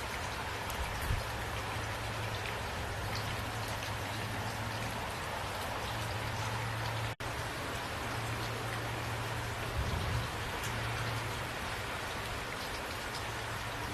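Steady rain falling, with scattered drop ticks over a constant hiss and a low steady rumble underneath. The sound cuts out for a split second a little past halfway.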